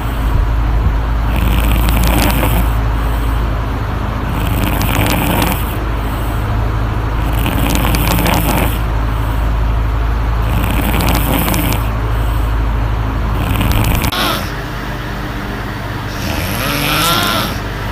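A woman snoring in her sleep, one snoring breath about every three seconds, over the steady hum of an electric fan that is loud in the recording. The fan's low hum eases off late on.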